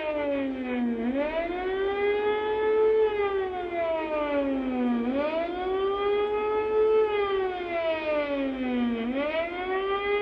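Civil-defence air-raid siren wailing: the pitch climbs quickly, holds, then sinks slowly, about every four seconds. It is the air-raid alarm warning of an air attack.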